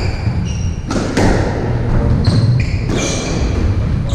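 Squash rally: the ball is struck and smacks off the walls several times, about a second apart, with short high squeaks of court shoes on the wooden floor between the hits.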